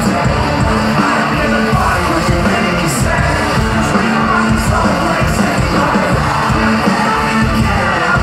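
Live rap-rock band playing loud over a large outdoor PA, with drums, guitars and vocals, heard from within the crowd.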